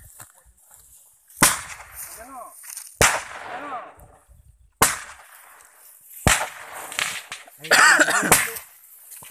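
Handheld firework tube, a roman-candle type, firing five sharp bangs about one and a half seconds apart, each trailed by a hiss with a wavering whistle.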